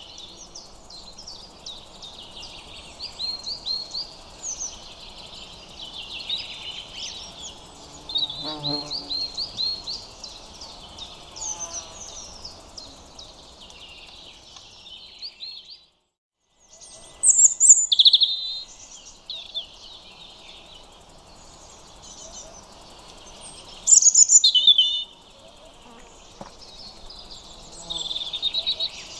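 European robins singing: high, thin warbling phrases, many notes layered together. Sound drops out briefly about halfway through, and a few louder phrases stand out afterwards.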